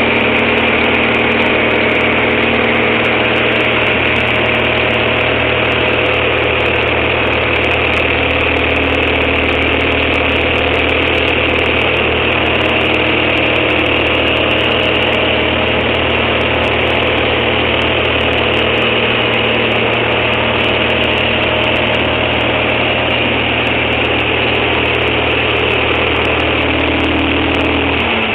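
Light aircraft's engine and propeller droning steadily, heard from inside the cabin.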